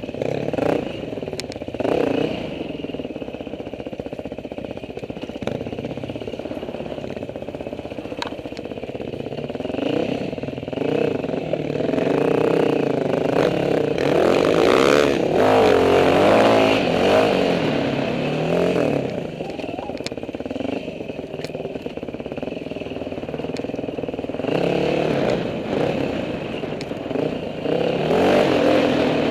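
Dirt bike engine ridden on a rough trail, its revs rising and falling constantly with the throttle. It runs hardest about halfway through. Scattered knocks and rattles come from the bike working over rocks and ruts.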